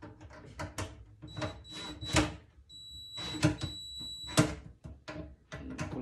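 Clicks, knocks and rattles of hands working on fittings under a kitchen sink while tightening a reverse osmosis faucet's mounting, the loudest knock about two seconds in. A high steady tone sounds twice in the middle, each time for about a second.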